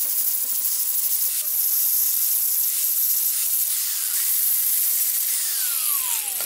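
4.5-inch Porter-Cable angle grinder with a flap disc of about 180 grit grinding a weld bead flush on quarter-inch steel plate: a steady, high, hissing grind. Near the end a tone falls in pitch.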